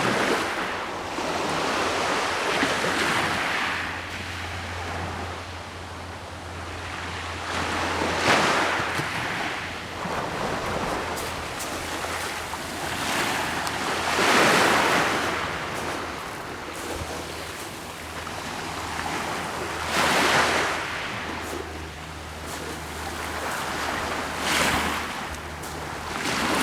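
Small Black Sea waves breaking and washing on the shore, each swelling and fading every five or six seconds on a calm sea. A steady low rumble of wind on the microphone runs underneath.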